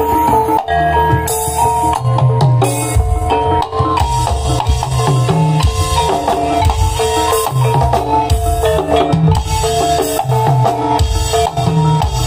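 Live jaranan dance music played loud through a PA: drums keep a driving beat under a repeating melody of short stepped notes over a held tone.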